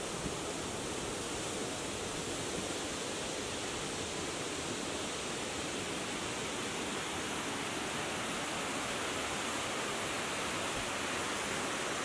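A waterfall rushing: a steady, unbroken noise of falling and splashing water.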